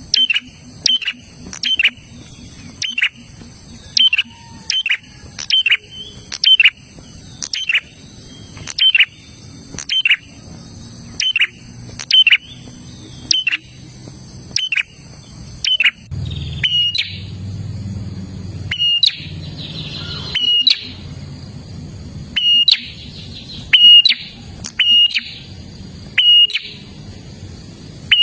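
A prinia (prenjak) calling continuously: sharp, loud, short notes, each a quick downward stroke, repeated about one to two times a second.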